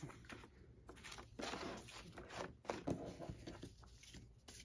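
Faint, irregular rustling and light taps of cardboard paper dolls and their paper clothes being handled and shifted in a box.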